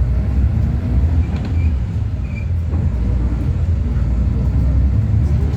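City bus interior: steady, loud low rumble of the engine and drivetrain, with faint rattles and ticks from the cabin.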